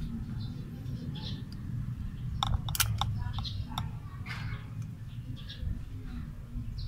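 Small metallic clicks and taps from the centrifugal advance weights and their retaining clip inside an open distributor being worked loose by hand. A cluster of sharp clicks falls about two and a half to four seconds in, over a steady low hum.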